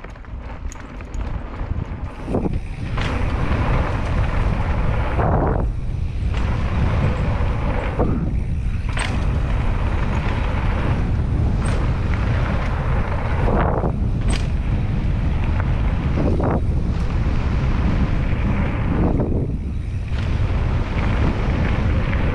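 Wind buffeting the microphone of a mountain bike rider's camera at speed down a dirt jump line, with the tyres rolling on packed dirt. The noise builds over the first few seconds as the bike gathers speed, then swells again every two to three seconds through the turns and jumps.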